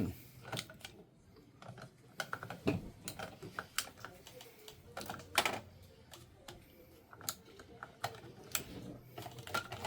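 Irregular plastic clicks and knocks of hands working on an inkjet printer while an ink cartridge is put back into the print carriage.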